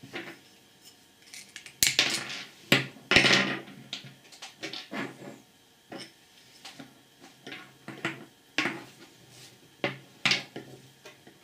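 Small metal compressor parts handled and set down on a wooden tabletop: scattered clicks, clinks and light knocks, busiest about two to three seconds in.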